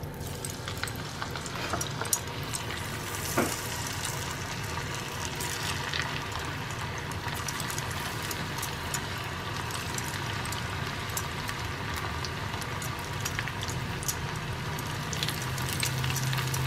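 Batter-coated chicken pieces deep-frying in hot oil in a kadai: a steady sizzle with many small crackles and pops.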